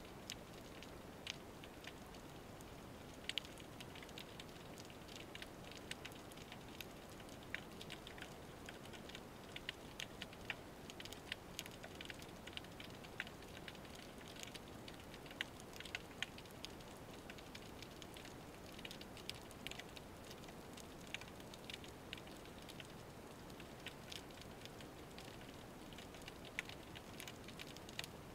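Underwater crackle of snapping shrimp on a rocky reef: irregular sharp clicks, several a second, over a steady low hiss.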